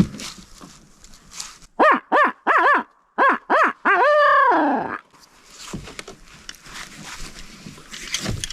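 Barred owl hooting: a run of six short hoots followed by one longer hoot that falls away at the end, the rhythmic "who-cooks-for-you, who-cooks-for-you-all" call.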